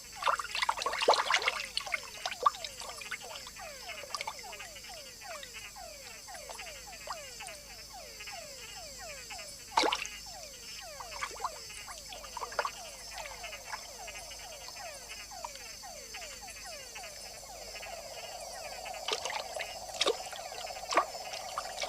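Chorus of male túngara frogs (mud-puddle frogs) giving their courtship calls: many overlapping whines, each falling in pitch, repeated over and over above a steady high insect drone. There are a few sharp clicks.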